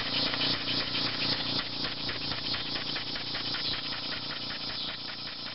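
Homemade single-cylinder engine running on compressed air at about 40 psi, its valve puffing and clicking in an even rhythm several times a second. A steady high cicada buzz runs underneath. The whole gradually grows quieter.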